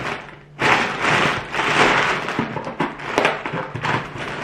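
Brown kraft-paper packing cushions rustling and crinkling as hands dig through them in an opened cardboard box. The crackling starts about half a second in and continues steadily.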